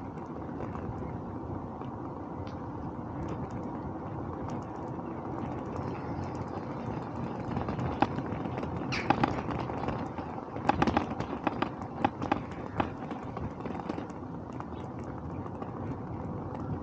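Riding a bicycle on the road: a steady rush of wind on the microphone and tyre noise, with a run of sharp clicks and rattles around the middle.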